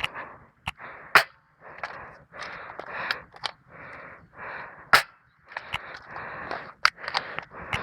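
Airsoft guns firing scattered single shots, about ten sharp cracks, the loudest a little past one second in and just before five seconds. A steady series of short hissing noises repeats between them, about every two thirds of a second.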